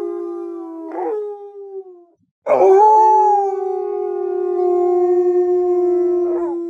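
Wolves howling: a long, steady howl breaks and fades out about two seconds in, and after a short silence another long howl starts sharply and is held, sinking slightly in pitch.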